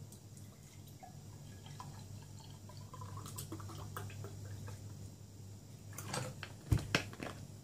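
Orange drink poured from a plastic bottle into a drinking glass: a faint trickling and dripping of liquid. Near the end come a few sharp knocks, the loudest sounds, over a steady low hum.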